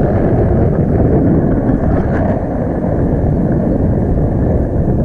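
Wind rushing over the microphone of a camera in a tandem paraglider's flight, a loud steady rumble with no pauses.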